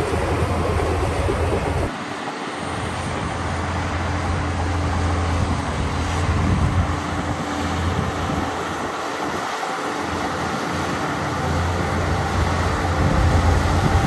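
Shantui bulldozer's diesel engine and steel tracks running steadily, with a brief dip in the low rumble about two seconds in.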